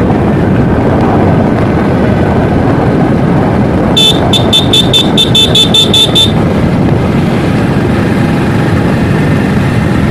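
Steady motorbike riding noise, engine and wind rushing on the microphone. About four seconds in, a quick run of about a dozen high, sharp beeps lasts a little over two seconds.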